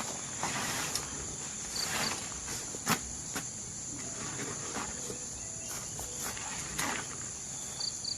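Insects in a forest keep up a steady, high-pitched drone. Scattered sharp clicks and knocks and a few short high chirps sound over it, twice, about two seconds in and near the end.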